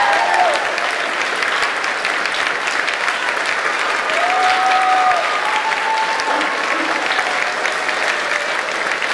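Audience applauding steadily, with a few voices calling out in short drawn-out cheers over the clapping near the start and again about halfway through.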